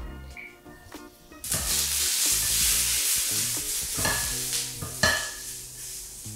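Sliced onion sizzling in hot olive oil in a nonstick frying pan. The sizzle starts suddenly and loudly about a second and a half in, and a spatula scrapes through the onion twice near the end.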